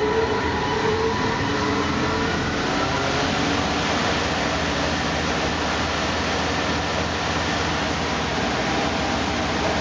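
Helical planer head of a Northtech 24-inch planer sander, driven by its 20-horsepower motor, starting up: its whine rises in pitch over the first few seconds, then settles into a steady run at speed.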